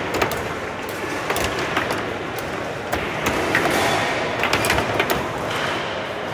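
Foosball table in play: sharp, irregular clacks of the ball striking the plastic figures and the table walls, with the steel rods sliding and knocking as the players work them.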